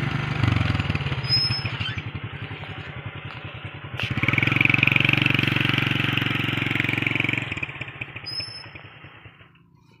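An engine running with a steady, rapid low pulse. It grows louder about four seconds in and fades away near the end.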